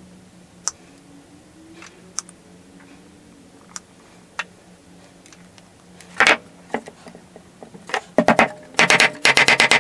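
Fret wire being tapped into the slots of a wooden ukulele fretboard with a small hammer: a few sharp single taps, then near the end a fast run of loud taps, about eight a second.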